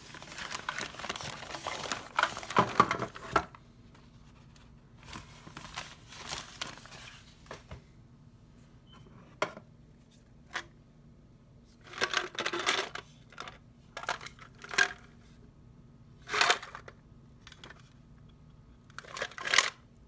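Packaging crinkling and rustling as it is handled and opened, in several irregular bursts with a few sharp clicks between them.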